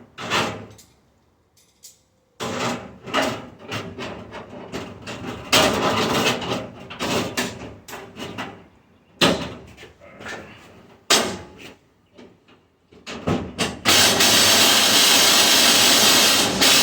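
Metal knocking and clattering from hand tools working on a stainless steel dishwasher being dismantled, a run of irregular hits and scrapes. Near the end comes about three seconds of loud, steady, harsh noise.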